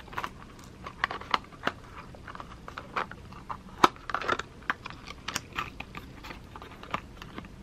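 Small paperboard box being handled and opened by hand: scattered sharp clicks and taps of fingernails and card, with brief rustling of the flaps.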